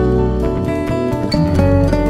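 Background music led by plucked acoustic guitar, playing a quick run of notes over a bass line.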